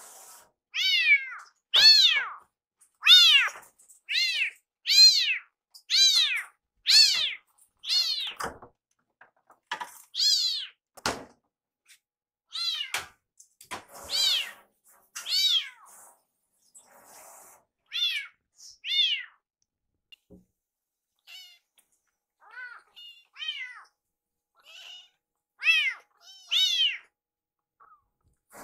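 Rescue kitten meowing loudly over and over, short high calls that sound like "iru": about one a second at first, then fewer and further apart. It is begging to be fed while its food is being prepared.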